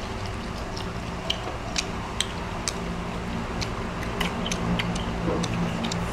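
People chewing and smacking their lips while eating grilled food, a string of sharp irregular mouth clicks a few times a second over a steady low hum.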